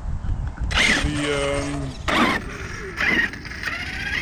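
Radio-controlled monster truck driving off down a gravel-strewn path, its motor and drivetrain whining in repeated bursts, the pitch rising and falling with the throttle.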